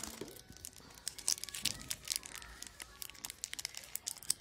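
Plastic candy wrappers crinkling as a hand rummages through a jar of individually wrapped mouth-freshener candies and picks one out: a dense run of small crackles and rustles.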